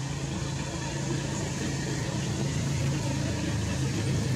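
Steady low mechanical hum of a running motor over an even haze of background noise.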